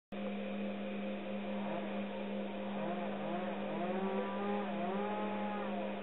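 A steady mechanical hum, with a fainter wavering tone that rises and falls in slow swells from about two seconds in.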